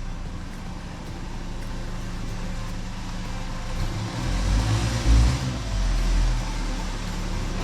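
A motor vehicle's engine running steadily with a low hum, growing louder for a couple of seconds midway with a heavy low thump about five seconds in.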